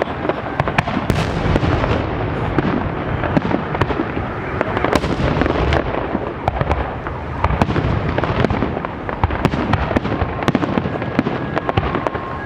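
Fireworks salute: a dense, continuous run of bangs and crackling bursts.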